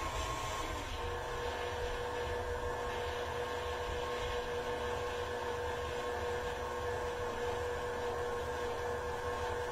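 Electric tilt-head stand mixer running, mixing ingredients in its metal bowl: a steady motor hum and whine whose tone shifts once about a second in, then holds.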